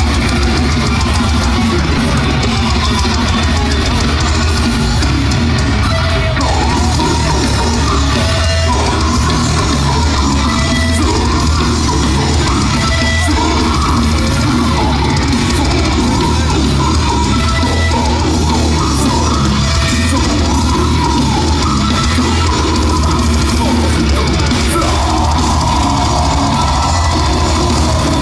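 Death metal band playing live at full volume: heavily distorted guitars and a pounding drum kit, loud and dense, heard from the floor among the crowd.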